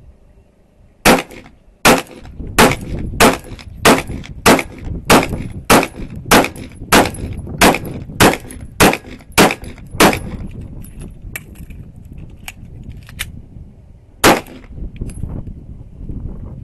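Handgun fired in a steady string of about fifteen shots, roughly one every 0.6 seconds, then a pause and a single further shot near the end.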